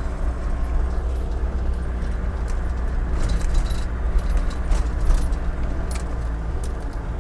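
Van driving along, heard from inside the cab: a steady engine and road drone with scattered light rattles and clinks.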